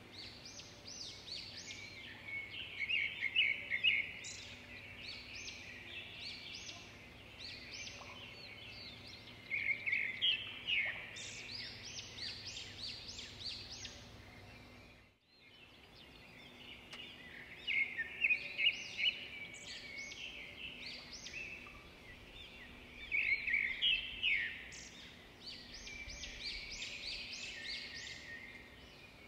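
Small songbirds singing, quick high chirps and twittering phrases coming in clusters, over a faint steady hum; the sound drops out briefly about halfway through.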